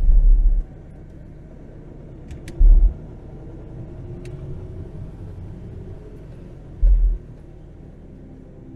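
Micro campervan driving slowly along a lane: a steady low road-and-engine rumble, broken three times by short, loud low thumps.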